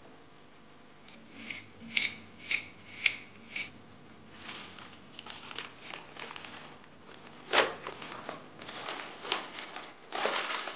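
A metal fork scraping and mashing butter into almond powder and sugar against a porcelain bowl, in five sharp strokes about two a second. Then baking paper and shortcrust pastry rustle and crinkle as the pastry is unrolled and pressed into a glass dish, with a loud rustle near the end.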